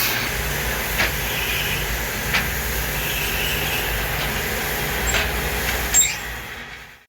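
Steady mechanical running noise with a low hum, broken by four sharp clicks or taps, fading out near the end.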